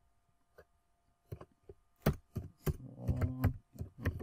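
Typing on a computer keyboard: a few scattered keystrokes, then a quick run of keystrokes from about two seconds in.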